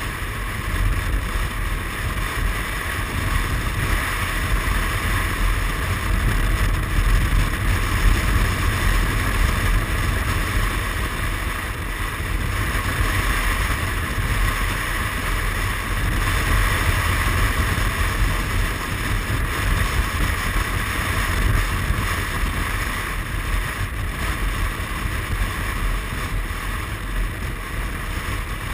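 Steady rush of wind buffeting the microphone of a moving Suzuki Burgman 400 maxi-scooter, with the scooter's engine and tyre noise underneath.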